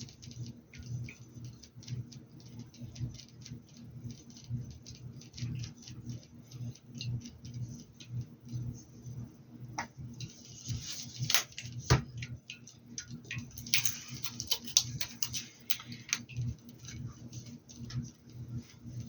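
A paintbrush working paint onto a hat: a run of small scratches and taps. The strokes get busier and louder in two stretches in the second half, with one sharp tap about twelve seconds in.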